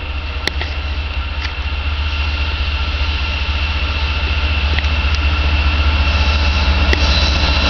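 Diesel engine of an approaching GE C44-9W freight locomotive, a steady low rumble that grows louder as it nears, with a few sharp clicks scattered through.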